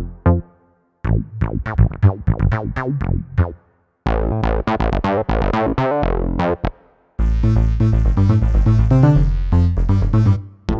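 Synth bass patches of a Roland FA-06/FA-08 workstation keyboard played in turn. Each is a short riff of quick, punchy bass notes, with brief silences where the patch changes. The middle patch has a much brighter, buzzier top than the others.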